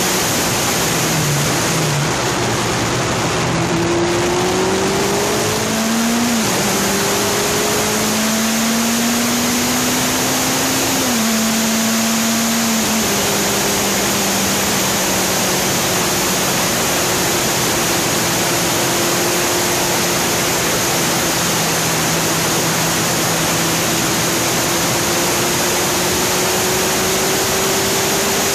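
Wind rushing over the microphone of a moving motorcycle, with the engine note underneath climbing in pitch under acceleration and dropping at two gear changes, about six and twelve seconds in, then holding nearly steady at cruising speed.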